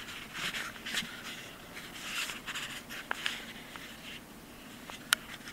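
Soft scratching and rustling, with a few sharp clicks; the loudest click comes near the end.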